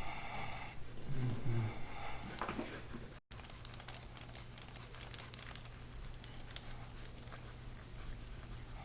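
Light crinkling and rustling of many small scattered clicks from hands-on soft-tissue massage of a patient. A brief low voice sounds in the first few seconds.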